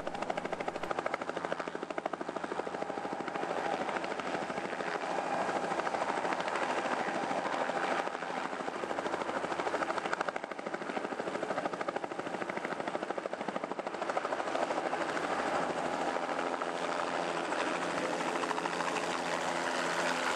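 Bell JetRanger police helicopter taking off. Its rotor blades chop rapidly and evenly over the steady run of its turbine engine.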